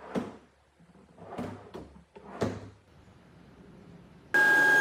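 Wooden drawers rolling in and out on metal ball-bearing drawer slides, about four short runs. Near the end a router in a router table starts suddenly and runs with a steady high whine, much louder than the drawers.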